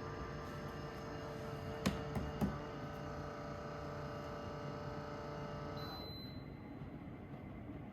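Humidifier running with a steady electric hum, two sharp clicks about two seconds in, then near the end the hum cuts out and a short high beep sounds.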